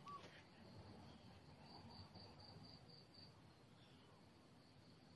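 Near silence with faint insect chirping: a high, evenly pulsed trill of about six pulses a second, heard in a run of a second or two near the middle.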